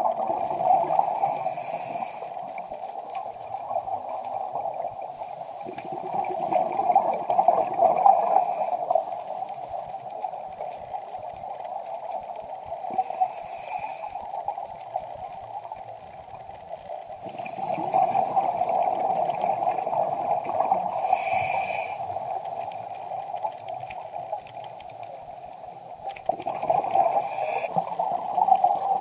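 Underwater recording: a scuba diver's exhaled bubbles gurgling in long bursts every several seconds, over a steady water hiss.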